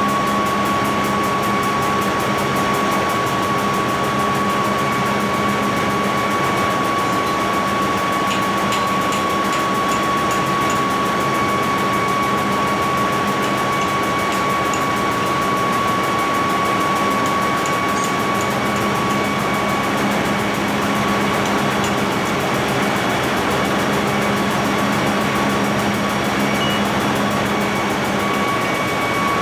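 Ship's engine-room machinery running: a loud steady drone with a constant high whine on top that fades out for a few seconds past the middle and returns.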